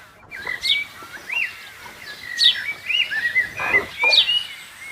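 Birds chirping: a few sharp, downward-sweeping chirps about a second and a half apart, among warbling, gliding notes.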